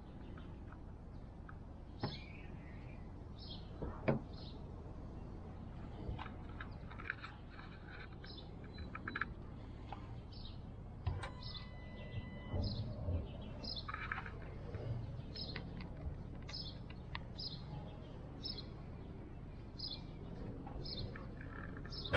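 Small birds chirping, short high chirps repeating every second or so over a low steady background hum, with a couple of sharp knocks in the first few seconds.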